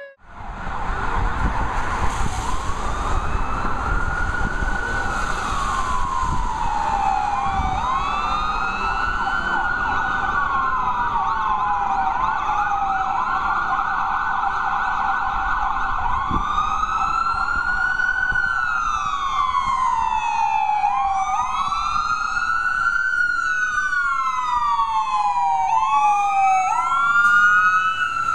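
Fire truck sirens wailing, two or more overlapping, each rising and falling every few seconds, over the low rumble of the truck's engine.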